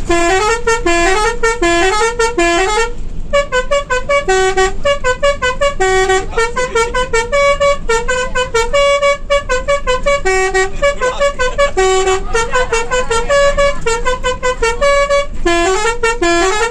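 Bus's musical multi-tone horn (klakson telolet) playing a fast melody of short stepped notes one after another. There is a brief pause about three seconds in.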